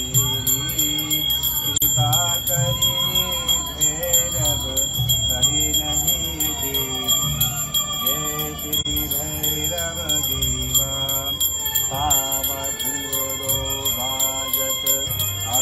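A puja hand bell rung continuously, its high ringing steady throughout, over music with a moving melody.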